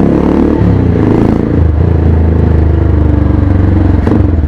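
Motorstar Z200X motorcycle engine running loud and steady through a Villain R11 open, unmuffled exhaust pipe. Its low note swells about a second and a half in.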